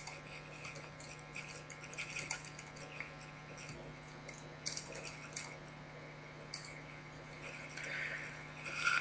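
Computer keyboard keystrokes: scattered, irregular clicks of typing, over a faint steady low hum.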